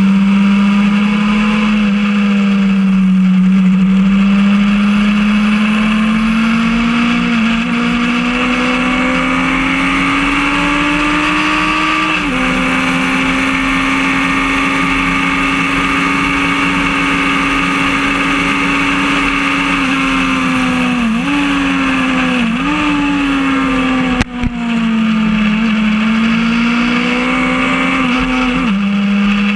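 Motorcycle engine at track speed heard from an onboard camera, with the rush of wind over the bike. The revs climb slowly and drop with an upshift about 12 s in, dip and recover twice a little past the middle as the rider slows for a corner and changes down, then drop again with another upshift near the end.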